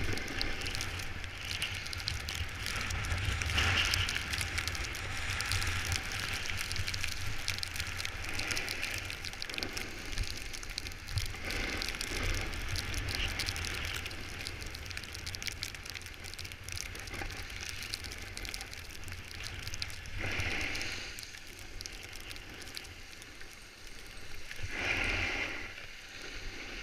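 Snowboard edges scraping and hissing over packed snow, a steady crackly slide that swells every few seconds with each turn.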